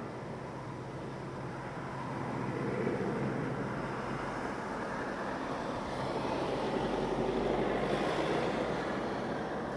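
Helicopter flying high overhead: a steady drone of rotor and engine that swells louder twice, a few seconds in and again near the end.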